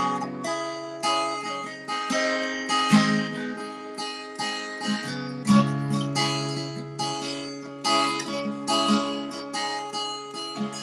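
Acoustic guitar strummed in a steady rhythm, a song's instrumental intro before the singing comes in.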